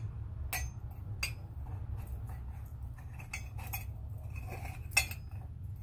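Scattered light metallic clicks and clinks from a brass ceiling light fixture being handled and turned over on a workbench, with a sharper one near the end, over a steady low hum.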